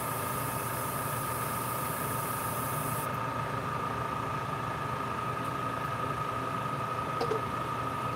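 Steady hum of a small electric motor with a high, even whine, under a high hiss that cuts off about three seconds in; a faint click near the end.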